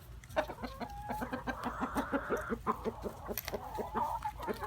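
Several chickens clucking in quick, overlapping calls, several a second, as they compete for bread being fed to them by hand.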